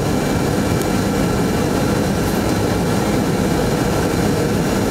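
Jetliner engines and rushing air heard inside the passenger cabin in flight: a steady, even noise, deepest in the low range, with faint thin whining tones held above it.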